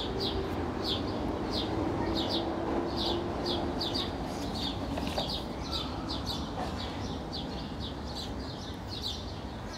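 A small bird chirping over and over, short high chirps about two a second, some in quick pairs, over a steady low background hiss.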